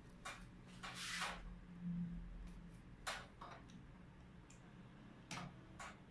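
Faint clicks and a brief rustle of hands handling PC parts and cables, over a steady low hum. One longer rustle comes about a second in, and a few sharper clicks follow later.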